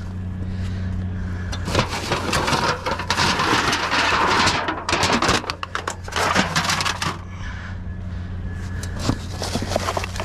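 Trash being rummaged through in a dumpster: a run of rustling, scraping and clattering, busiest in the middle, over a steady low hum.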